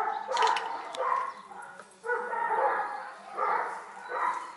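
A dog barking about five times, each call half a second to a second long with short gaps between.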